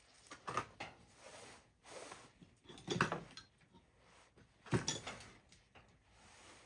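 Tools and metal parts being handled on a workbench: a few sharp knocks and clatters, the loudest about three seconds in and just before five seconds, with soft scraping and rustling between them.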